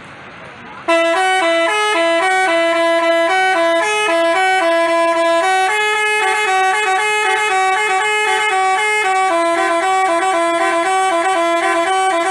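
Basuri telolet multi-tone bus horn playing a quick stepping tune of paired notes, starting about a second in.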